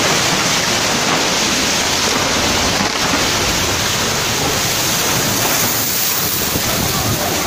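Landslide debris flow of mud and water rushing down a hillside: a steady, loud rushing noise.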